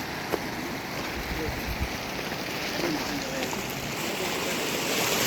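Steady rush of a flowing stream, with faint distant voices over it.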